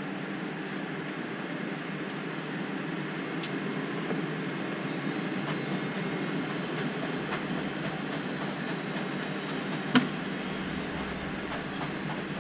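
Cabin noise of a McDonnell Douglas MD-83 taxiing: a steady hum from its tail-mounted jet engines, with light ticks as the wheels roll over the concrete pavement joints. One sharp click about ten seconds in is the loudest moment.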